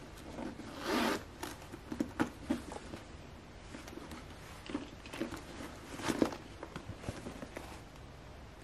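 Gold metal zippers on a Louis Vuitton Speedy Bandoulière 30 handbag being pulled in a few short runs, the strongest about a second in and another about six seconds in. Between them come small clicks and rubs of the zipper pulls and the bag being handled.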